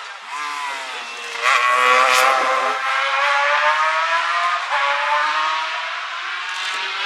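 Racing sidecar outfits' 600cc four-stroke engines running at high revs as they pass. The revs rise sharply about a second and a half in, then the note holds high and slowly falls.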